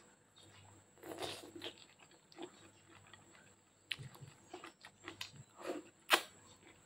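Mouth sounds of eating spaghetti by hand: noodles slurped in and wet chewing in short, scattered bursts, with a sharp slurp about six seconds in, the loudest of them.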